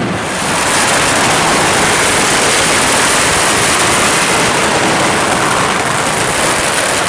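Loud, unbroken hiss and crackle of fireworks at close range. It starts just after the beginning and then holds steady.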